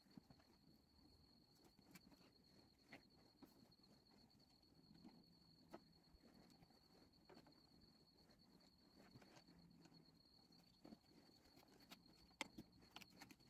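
Near silence with a faint, steady high-pitched insect trill, and scattered soft clicks of a knife on a plastic cutting board as a fish is filleted.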